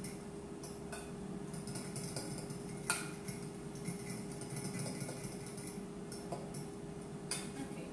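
Metal spoon clinking and scraping against a small glass bowl in irregular ticks while stirring a thick yogurt and blue-cheese dressing, with one sharper clink about three seconds in. A steady low hum runs underneath.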